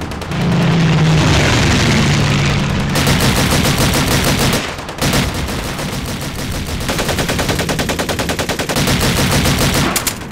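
Battle sound effects: a low, steady droning rumble for about the first three seconds, then long stretches of rapid automatic machine-gun fire, broken by short pauses twice.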